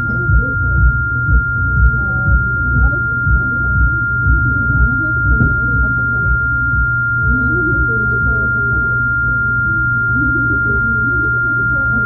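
A steady electronic beep tone: one high, pure pitch held unbroken at the same level, over a low background rumble and a faint murmur of voices.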